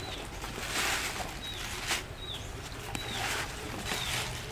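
Thin plastic bags crinkling and rustling as they are handled and packed into a basket, loudest about a second in and again past the three-second mark. In the background a bird repeats a short, high, falling chirp every second or so.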